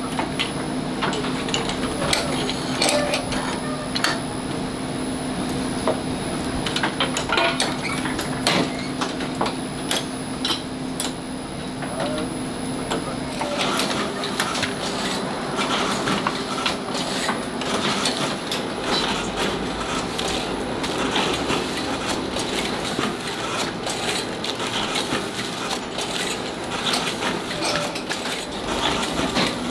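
Automatic walnut-cake baking machinery running: irregular metal clicks, knocks and clatter from the moving molds and mechanism over a steady hum. The hum stops about halfway through, and the clatter becomes busier after that.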